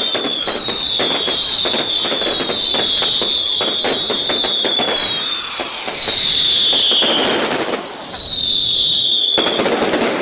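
Daytime fireworks going off in a dense volley of sharp cracks and bangs mixed with shrill whistles, each falling in pitch. The whistles come thick and overlapping at first, then as a few longer ones, and the barrage stops abruptly near the end.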